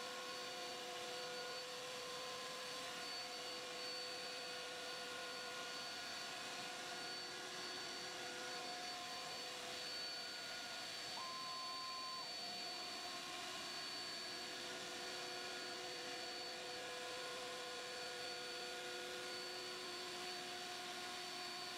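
Steady machine whir with several constant whining tones: a CNC router's spindle and dust extraction running as it cuts grid lines into an MDF spoilboard. A brief higher tone sounds for about a second halfway through.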